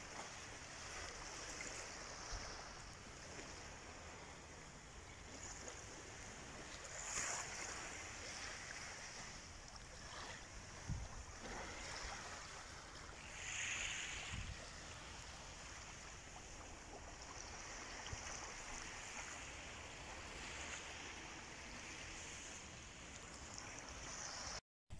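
Faint, steady wash of small sea waves lapping on a sandy beach, with a few soft bumps.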